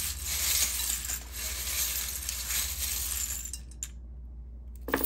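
A handful of small metal charms and plastic letter tiles rattling and jingling together as they are shaken for about three and a half seconds, then, after a brief pause, a clatter near the end as they are cast out onto a hard countertop.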